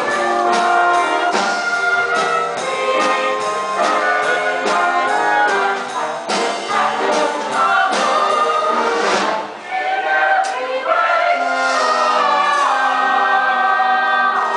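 Live pit orchestra playing a brassy show-tune dance break, trumpets and trombones carrying the tune over regular drum hits.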